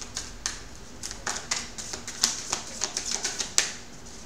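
A tarot deck being shuffled by hand: a quick, irregular run of cards clicking and snapping against each other, several a second.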